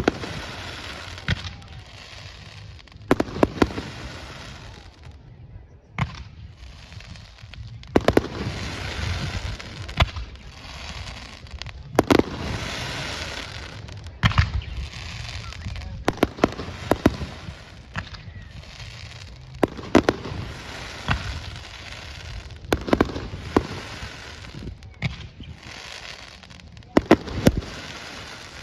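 Fireworks display: aerial shells bursting in sharp bangs, one every second or two and sometimes in quick pairs, over a continuous hissing haze between the bursts.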